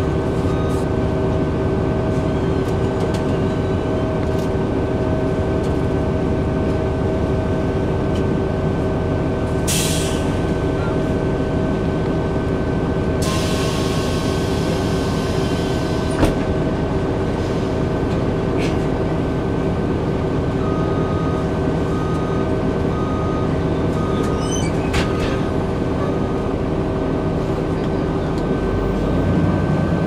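Interior ride noise of a 2002 Blue Bird CS 40-ft transit bus: a steady rumble from its Cummins ISC six-cylinder diesel and drivetrain, with a steady whine over it, heard inside the passenger cabin. Two bursts of hiss come about ten and thirteen seconds in, and a sharp click follows about sixteen seconds in.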